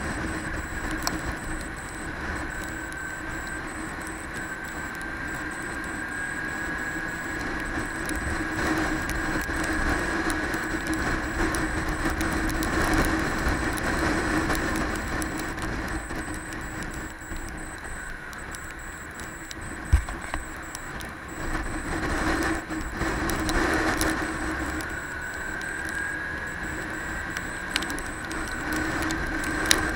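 Motorcycle engine running under way, with a steady drone whose pitch drifts slowly up and down with speed, over wind rumbling on the helmet microphone. One sharp click about two-thirds of the way through.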